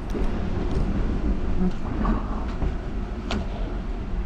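Steady low rumble aboard a sailing catamaran working through a rough sea, with a few light clicks and scrapes of a spatula against a frying pan, the sharpest about three seconds in.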